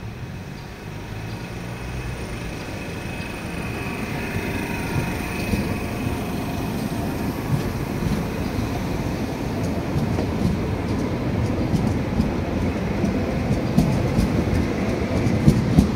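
Two coupled Cologne Stadtbahnwagen B light-rail cars pass close by, a rumble of wheels on rail growing louder as they come. The wheels clatter and click over the track switches more and more often toward the end, with a faint high squeal a few seconds in.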